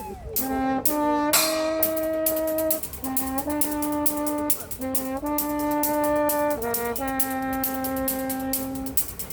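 Street brass band of trombones playing a tune together in held notes that change pitch every second or two, over a steady drum beat.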